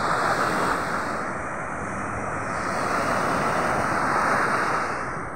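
Ocean surf breaking and washing up a sandy beach: a steady rushing noise that swells about four seconds in, with wind on the microphone.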